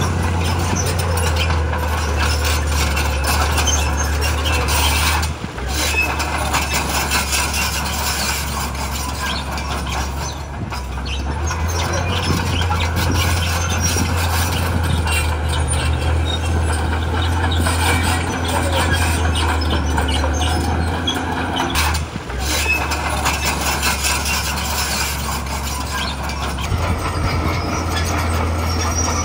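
Bulldozer's diesel engine running steadily under load, with its steel tracks clanking and rattling as it pushes rock.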